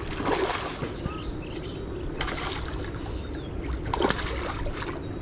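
Water splashing in three short bursts, with small birds chirping in between.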